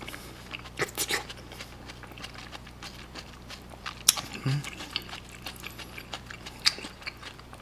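A person eating close to the microphone: chewing a mouthful of rice and Chinese glass noodles soaked in braised-chicken sauce, with scattered wet mouth clicks. A sharp click about four seconds in is likely the metal spoon against the stainless steel pan.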